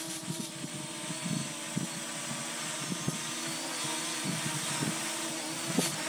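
Parrot Anafi quadcopter's propellers whining steadily in flight, the pitch wavering slightly as it holds against the wind, growing a little louder near the end as it comes closer. Wind gusts buffet the microphone underneath.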